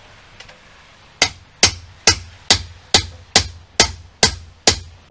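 Hammer striking the cap of a scythe peening jig, about nine sharp strikes at a steady two or so a second, beginning about a second in, each with a short ring. This is the peening of the scythe blade, hammered out to thin and draw out its cutting edge.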